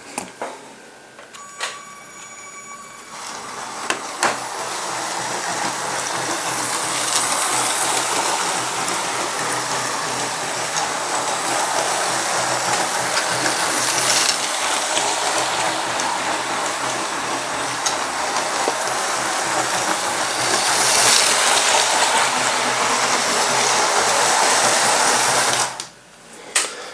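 Lego train driven by a Power Functions motor running around plastic track: a steady motor whir and gear rattle with the wheels clattering on the rails. It builds up after a few clicks at the start, swells louder about two-thirds through, and stops suddenly near the end.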